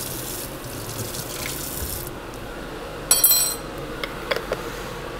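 Kitchen tap running for about two seconds, then shut off. About three seconds in, a glass bottle clinks with a short bright ring, followed by a few light clicks.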